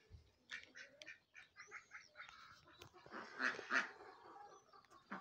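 A flock of ducks calling faintly, with scattered short quacks and a louder cluster of calls about three seconds in.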